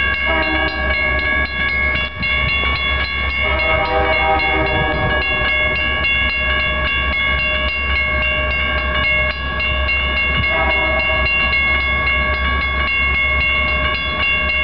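Railroad crossing warning bell ringing steadily as a freight train approaches. The locomotive's air horn sounds three blasts: one at the start, a second about four seconds in, and a shorter one about ten seconds in.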